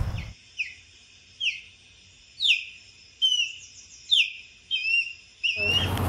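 Osprey calling: a series of short, high whistled chirps, each sliding down in pitch, about one a second, with a quick run of chirps around the middle.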